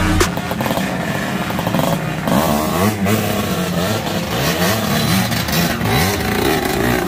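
Two-stroke dirt bike engines revving up and down on a trail climb, the pitch rising and falling about once a second.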